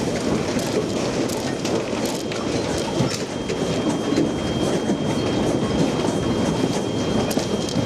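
Office building shaking in an earthquake: a steady rumble with constant rattling and clattering of desks, shelves and fittings. A faint steady high tone sounds alongside it.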